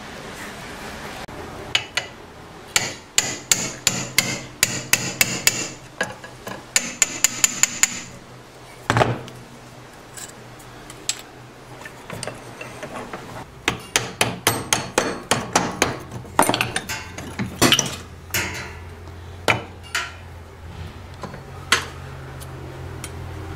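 Hammer blows on a steel brake-line splitter bracket and its half-inch bolt clamped in a bench vise, knocking the bolt off the part. The blows come in quick runs of about four a second, with a metallic ring, and there are a few single heavier strikes.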